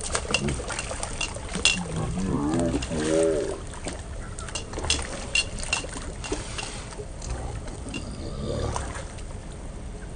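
A hooked barramundi thrashing and leaping at the water's surface, a run of sharp splashes that thins out over the last few seconds as the fish tires.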